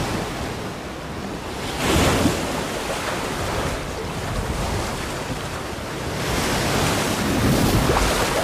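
Ocean waves and wind: a steady rushing wash that swells about two seconds in and again near the end.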